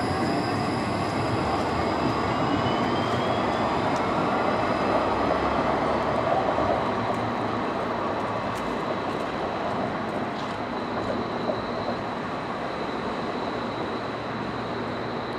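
Škoda ForCity low-floor electric tram moving off along the rails, its traction motors whining with a pitch that rises over the first few seconds as it gains speed, over the steady rumble of wheels on rail. A thin high whistle holds throughout, and the sound eases off slightly as the tram draws away.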